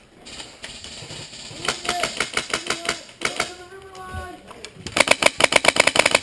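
Full-auto bursts from a Polarstar-powered MP5A4 airsoft gun, a rapid run of sharp clicks. A shorter, slower burst comes about two seconds in under a shouting voice, and a louder, faster burst of about a dozen shots a second near the end.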